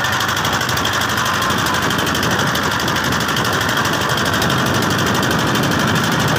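Motor boat's engine running steadily, with a fast, even chugging beat.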